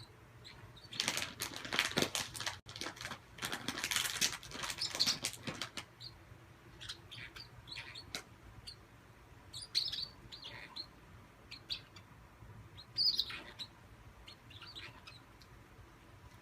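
A bird makes a dense run of rapid fluttering, crackling noise for a few seconds. It then gives short, scattered high chirps and clicks.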